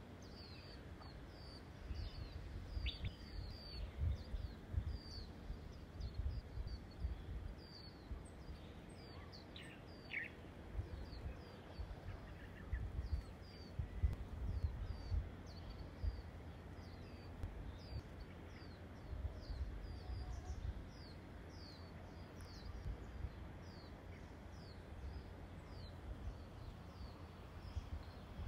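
Small birds chirping steadily, a string of short falling notes a few times a second. Gusts of wind rumble on the microphone in bursts.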